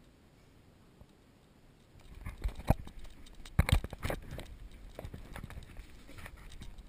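Near silence, then about two seconds in a run of irregular thumps and knocks from quick footsteps on an apartment floor and the bumping of the body-held action camera as someone runs through the rooms. The heaviest knocks come close together about a second and a half after the thumping starts.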